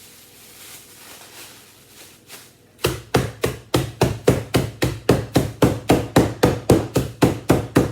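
Rolling pin beating Biscoff biscuits inside a plastic bag to crush them into crumbs. After a quiet start, rapid, even blows begin about three seconds in, about four a second.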